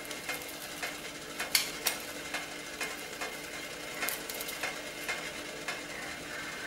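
Hand-held wooden idiyappam press being squeezed to push finger-millet dough out as noodles, giving a scatter of short sharp clicks and creaks over a steady low hiss.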